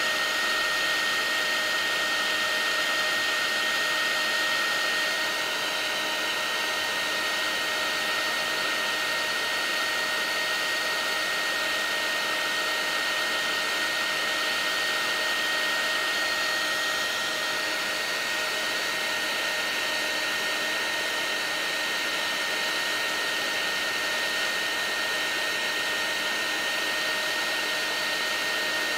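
Paint-stripping heat gun blowing steadily: a rush of air with a constant high whine from its fan. It is heating a circuit board to reflow solder.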